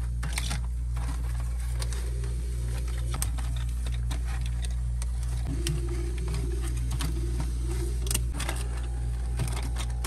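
Plastic snack trays in card sleeves clicking and crinkling as they are handled and stood upright against one another on a refrigerator shelf, over a steady low hum.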